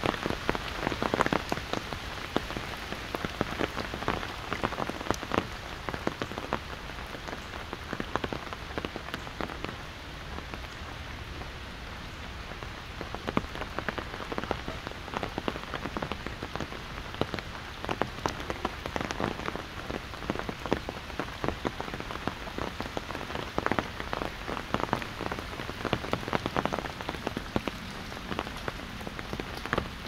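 Steady rain pattering on an umbrella held overhead, with many sharp, irregular drop strikes and a few heavier clusters of drops.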